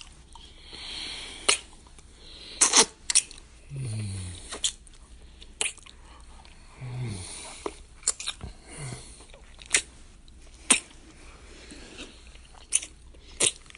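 Close-up kissing: repeated wet lip smacks with breathy exhales between them, and a few short low hums that drop in pitch.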